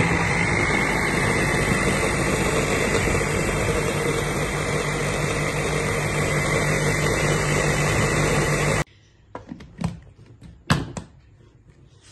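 Countertop blender with a glass jug running steadily, blending mango pieces, milk and ice cream into a shake, then cutting off suddenly about nine seconds in. A few light knocks follow.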